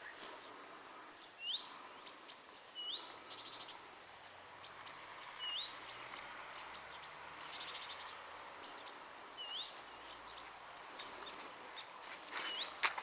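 Songbirds calling at dawn: a short call that sweeps down and then hooks up again, repeated about once a second, with sharp ticking notes in between. Near the end a brief burst of rustling noise is the loudest sound.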